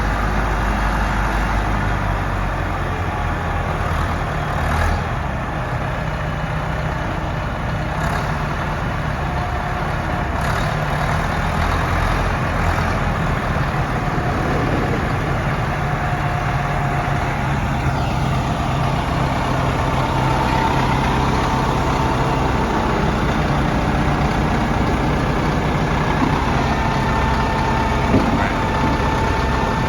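Caterpillar 930 wheel loader's diesel engine running steadily, with a faint higher whine coming and going now and then.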